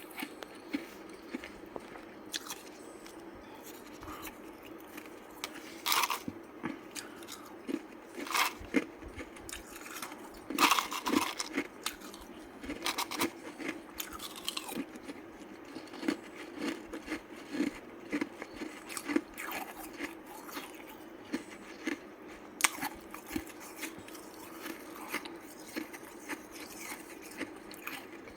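Ice being bitten and chewed close up: a series of sharp cracking bites with smaller crunches between them, a few of the bites much louder than the rest.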